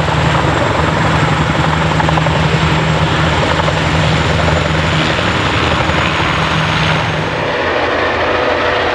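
Two Boeing CH-47 Chinook tandem-rotor helicopters hovering low at close range: heavy, steady rotor noise with a faint high turbine whine. About seven and a half seconds in, the sound changes to lighter helicopters flying past.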